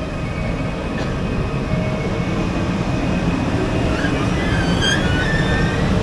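Talgo 250 "Afrosiyob" high-speed train pulling into the station platform, a loud steady rumble. Brief high squeals come about four to five seconds in as it slows.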